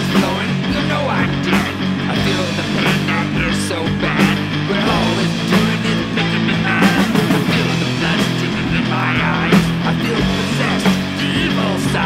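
Rock band playing loud and steadily: distorted electric guitars, bass guitar and a drum kit.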